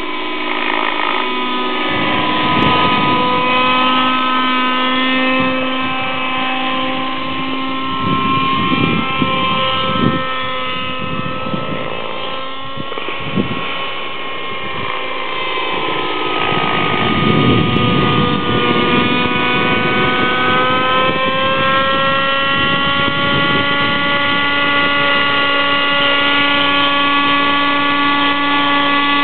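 Thunder Tiger Raptor 60 radio-controlled helicopter in flight, its nitro glow engine and rotor running with a steady, slightly wavering pitch as it manoeuvres. Several short rushing bursts of noise break in along the way.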